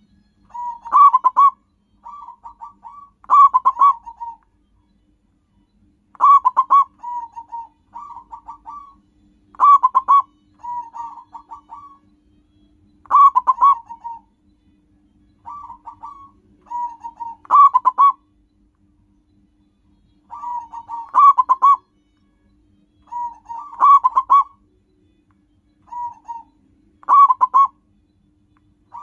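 Zebra dove (local Indonesian perkutut) singing its stuttering cooing song. Quick runs of notes form loud phrases about every three to four seconds, with softer cooing notes in between.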